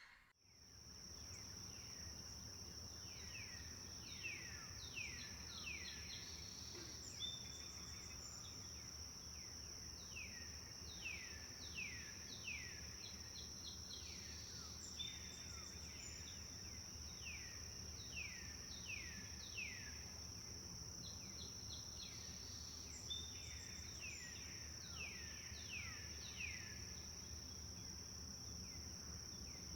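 Tropical forest ambience: a steady high-pitched insect drone, with birds repeatedly giving short calls that slide down in pitch, in quick runs of two to four every second or two.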